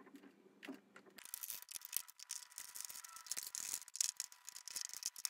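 Hand screwdriver driving screws through the skateboard deck into the enclosure: rapid, irregular clicking from the tool and screws, starting about a second in.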